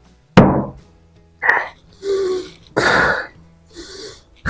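A man clearing his throat, coughing and gasping in a run of about six harsh bursts, reacting to the burn of a gulp of whisky he has just downed.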